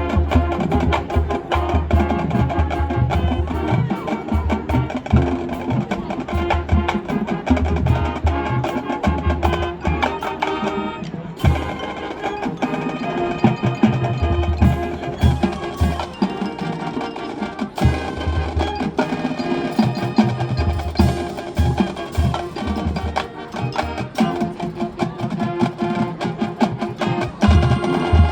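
High school marching band playing its field show, with drums and mallet percussion prominent over a steady, driving beat and a short break about eleven seconds in.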